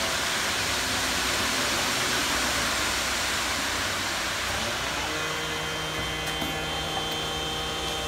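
Concrete mixer truck running while it discharges concrete down its chute into a footing form: a steady mechanical rush of engine and turning drum. About five seconds in it settles into a steadier hum with a clear fixed tone.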